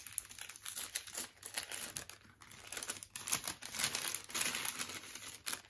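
Paper crinkling and rustling as a small striped paper gift bag is opened by hand, with a short lull a little over two seconds in.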